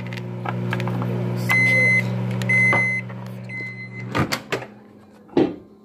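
Microwave oven running with a steady hum, then three short beeps about a second apart as its cycle ends; the hum stops and a few knocks and clatters follow.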